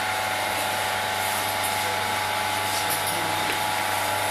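Electric potter's wheel running at a steady speed, its motor giving a constant hum.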